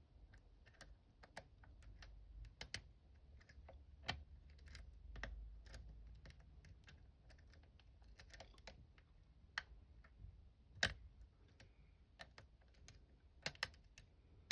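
Faint, irregular clicking of a Bogota pick working the pins of a five-pin BWINTECH euro cylinder lock, with a sharper click about eleven seconds in and a few quick ones near the end.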